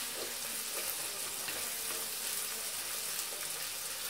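Onions, green chillies and garlic sizzling steadily in hot oil in a clay pot while being stirred with a wooden spatula, the onions at the light sauté stage of a tempering.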